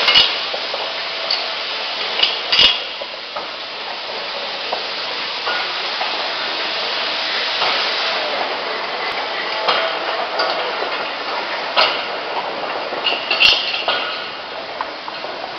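Chain log conveyor running: its steel drag chain and lugs clatter and clink steadily along the steel trough, with a few sharper metallic clanks.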